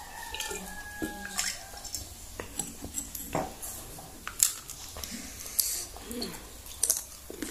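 Close-miked eating: crunching bites of crispy fried wonton and moist chewing, with irregular sharp clicks and mouth smacks.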